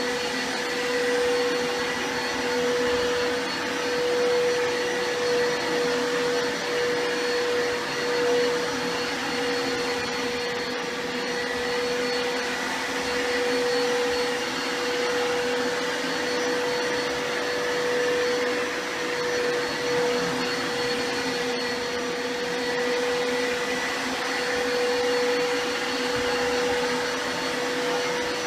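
Vacuum cleaner motor running steadily: a constant whine over the rush of air.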